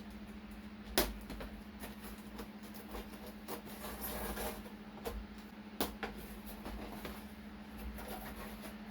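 Faint steady low hum with scattered light clicks and knocks; the sharpest knocks come about a second in and just before six seconds, with a soft rustle around four seconds.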